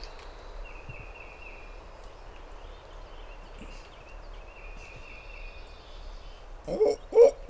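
A quiet early-morning lull with only faint, high, steady tones, until a wild turkey gobbles loudly near the end.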